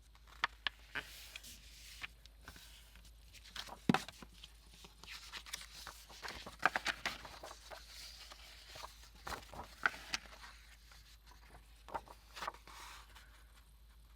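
Paper and craft supplies being handled on a table: rustling, sliding and shuffling, broken by irregular light taps and clicks, the sharpest about four seconds in.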